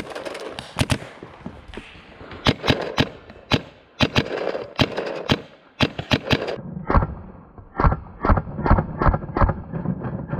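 Paintball markers firing: irregular single shots and quick pairs, several a second. From about seven seconds in the shots sound duller.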